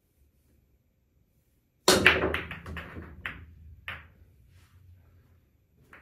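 A nine-ball break on a pool table: the cue ball smashes into the rack about two seconds in, followed by a quick scatter of ball-on-ball and cushion clicks that thin out over the next two seconds. Under the clicks, the balls rumble as they roll across the cloth and settle.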